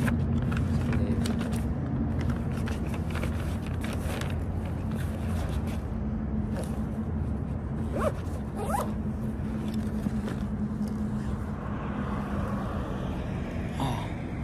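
A steady low rumble with a constant hum, with a run of sharp clicks and rustles over the first two seconds and a brief rising squeak a little past halfway.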